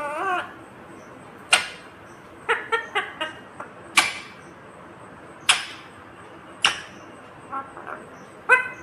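Ringneck parakeet calling: a few single sharp shrieks spaced a second or more apart, between quick clusters of short pitched chattering notes.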